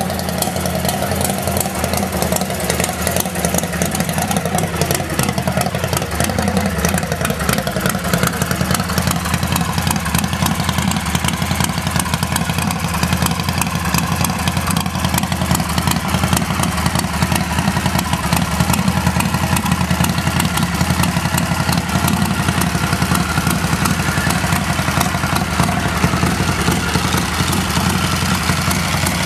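Harley-Davidson Knucklehead V-twin engine idling steadily in a custom chopper.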